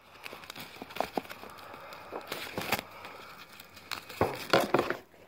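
Scattered clicks, knocks and rustling as hands work the harness straps, metal clips and plastic shell of a child car seat.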